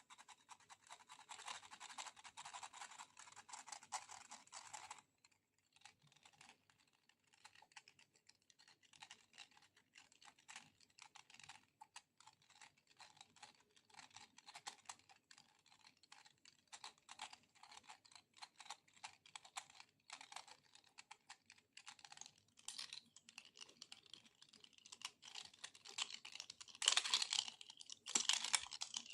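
Close-up ASMR handling sounds: rapid, fine crackling clicks like light tapping and peeling, with a brief pause about five seconds in and louder, denser crackling near the end.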